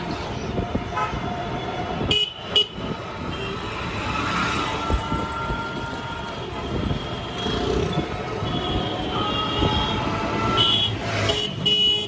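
Street traffic heard from an open rickshaw: vehicle horns tooting again and again over the running of engines and passing motorcycles, with two sharp knocks about two seconds in.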